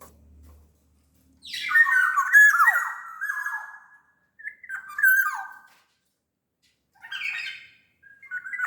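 Black-naped oriole (kepodang, the large Sumbawa form) calling in three or four short bursts, mixing fluty whistled notes, some sliding down in pitch, with harsh nasal squawks.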